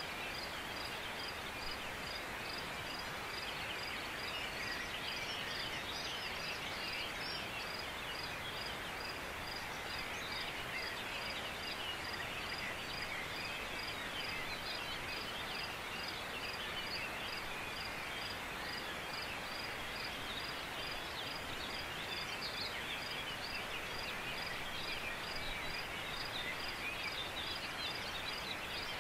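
Mountainside ambience: many songbirds calling in a steady chorus, with a high chirp repeating about twice a second, over a constant hiss.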